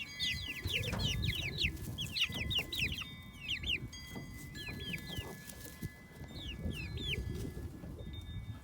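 Young pullets (half-grown chickens) peeping: quick runs of short, high, falling cheeps, thickest in the first three seconds and sparser after, over a low background rumble.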